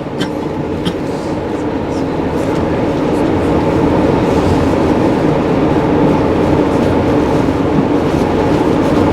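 Passenger train rolling along the track: a steady rumble of wheels on rail that grows a little louder over the first few seconds.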